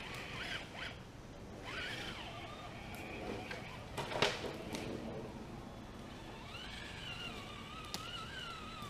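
RC crawler truck's electric motor and gears whining as it climbs, the pitch rising and falling with the throttle. There is a sharp knock about four seconds in and a lighter click near the end.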